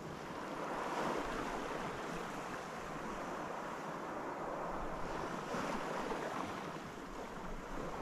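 Small waves washing onto a sandy beach: a steady hiss of surf that swells gently and eases off.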